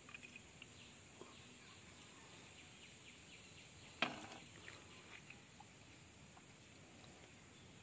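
Quiet outdoor background with faint insect-like chirps, and a single sharp click or knock about four seconds in.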